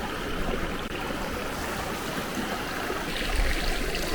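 Steady rushing of a snowmelt-high mountain creek. About three seconds in, a low rumble of wind buffeting the microphone rises over it.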